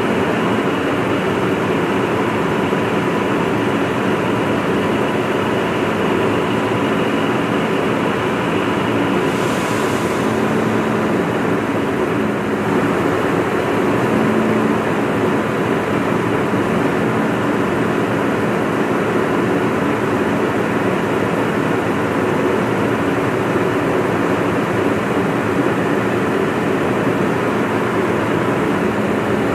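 Volvo FM 370 refuse truck's six-cylinder diesel engine running steadily while parked, with a thin steady whine over it. A short hiss comes about ten seconds in.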